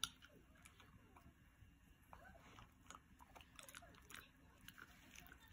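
Miniature schnauzer gnawing a chew held between its front paws: faint, irregular crunching and clicking of teeth, with one sharper crack right at the start.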